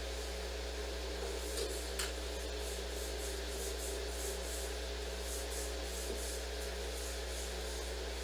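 Repeated soft rubbing or scraping strokes, about two or three a second, starting about a second and a half in, with a couple of small clicks among the first ones. Underneath is a steady electrical hum and hiss.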